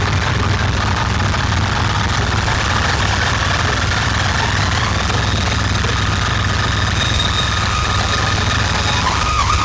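A large outdoor DJ sound system plays a loud, steady deep bass drone, with faint higher tones over it.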